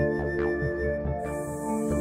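Background music with long held melodic notes.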